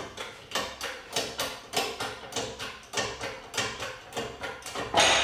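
Hand-pumped hydraulic shop press being worked, its pump lever clicking steadily about three times a second. Near the end there is a loud sharp crack as the bearing breaks free and is pushed out of the pipe fitting.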